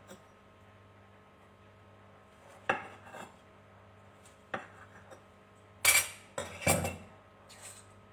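Kitchen knife cutting through rolls and knocking on the cutting board: a handful of sharp, irregular knocks, the loudest few around six to seven seconds in.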